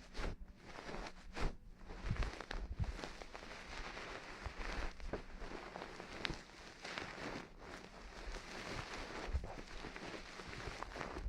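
Close-miked ASMR ear-cleaning sounds: a tool scratching and rubbing at a microphone's ear, with a steady crackle and many small clicks and occasional soft thumps.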